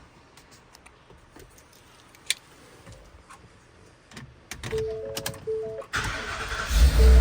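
A Ford pickup's gas V8 being started. After a few light clicks, the cab's electronic chime sounds a series of short tones. The starter cranks briefly about six seconds in, and the V8 catches near the end and runs loud and deep.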